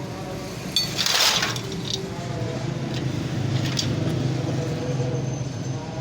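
Metal tools clinking and tapping while a motorcycle silencer is bolted back on, with a short rasping burst about a second in. Under it runs a steady background engine hum.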